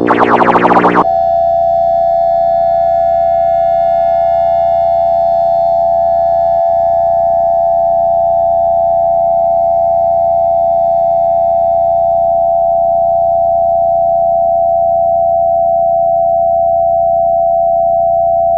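A harsh electronic burst of about a second, then a steady two-tone emergency-alert attention signal held unchanged for the rest, with faint synth music underneath.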